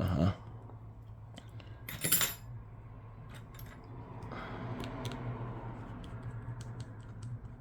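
Light clicks and clinks of small repair tools and phone parts being handled while the plastic cover over a smartphone's charging port is taken off, with one louder clink about two seconds in. A steady low hum runs underneath.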